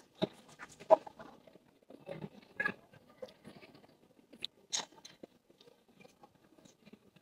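A person biting into and chewing crunchy food close to the microphone: irregular crunches with a few sharper cracks, the loudest about a second in.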